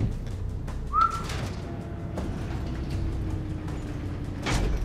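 Sound effects from a TV drama's soundtrack: a low rumble with scattered clicks, a brief whistle-like tone about a second in, and a louder hit near the end.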